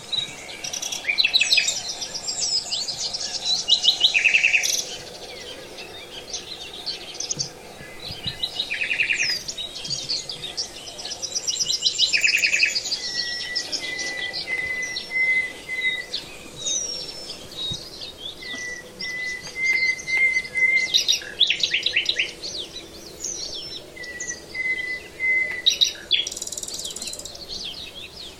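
Several songbirds singing at once: fast rattling trills and quick chirps, with runs of short, evenly spaced whistles on one pitch.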